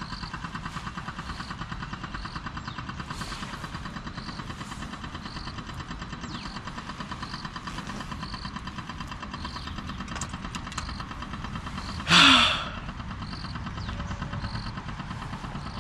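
A steady engine-like drone with a fine, even pulse and a faint tick repeating under a second apart. About 12 s in, a man gives a short, loud, falling exclamation.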